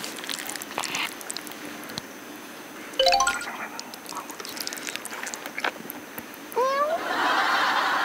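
Quiet noodle-eating sounds: black bean noodles being slurped and chewed, with faint clicks. Over them are edited cartoon sound effects: a quick rising chime run about three seconds in, and two rising whistle-like glides near the end, followed by a louder hiss.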